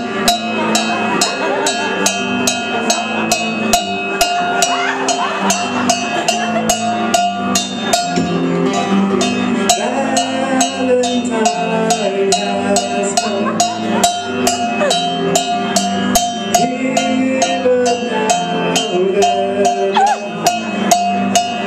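Live rock band in an instrumental break: an electric guitar plays a wandering lead over a steady, evenly repeated cowbell beat.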